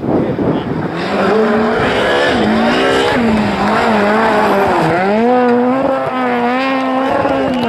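Rally car engine running hard at high revs, its note rising and falling again and again, with a sharp drop and climb back about five seconds in.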